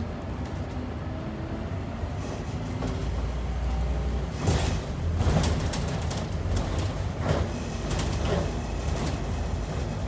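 Inside a Scania N230UD Optare Olympus double-decker bus: the diesel engine rumbles steadily and swells a little about a third of the way in. From about halfway through, a series of sharp clatters and knocks rattle through the cabin, some with a short hiss.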